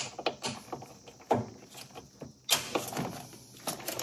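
A hand tool working a hex-head bolt on a car steering column: scattered small metal clicks and clinks, with a knock about a second in and a sharper clatter about two and a half seconds in.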